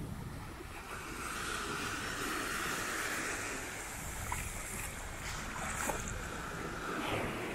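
Sea surf washing onto a sandy beach in a steady wash of noise, with wind buffeting the microphone as a low rumble.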